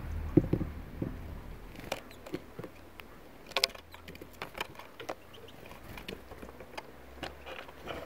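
Great spotted woodpecker feeding from a coconut-shell feeder: irregular sharp taps and clicks of its bill on sunflower seeds and shell, with a few dull thumps in the first second.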